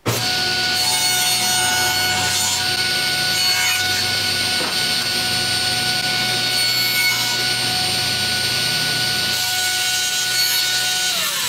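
Grizzly G0690 cabinet table saw running with a steady whine while its blade cuts a kerf partway through a plywood sled base and trims off the sled's wooden runners. Near the end the whine falls in pitch.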